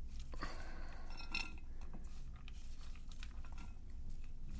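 Sliced celery being moved from a cutting board into a bowl: scattered small clicks, knocks and a light rustle, mostly in the first second and a half, over a low steady hum.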